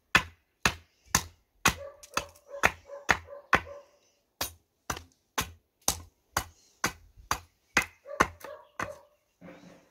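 Hand axe chopping along the edge of an upright wooden board, a quick run of about twenty sharp strikes at two to three a second, with a short pause about four seconds in.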